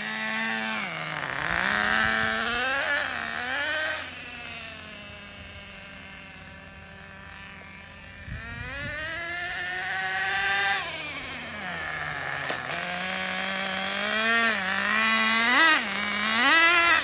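The small Pro.15 nitro engine of a Traxxas Nitro Rustler RC truck, freshly broken in, revving up and down as the truck is driven. It is quieter in the middle as the truck moves off, then louder again, with quick sharp revs near the end.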